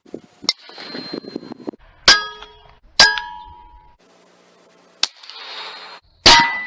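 Air rifle shots: five sharp cracks in about six seconds, most trailing a short metallic ring, with the last the loudest.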